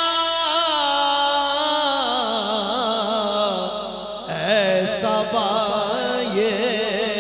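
A man singing a naat, an Urdu devotional poem, into a microphone, unaccompanied. He holds a long quavering note that slides down about two seconds in, then starts a new ornamented phrase about four seconds in.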